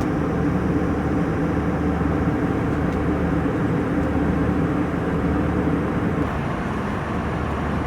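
Steady noise of a passenger jet's engines and airflow, heard from inside the cabin. A low hum in it stops about six seconds in.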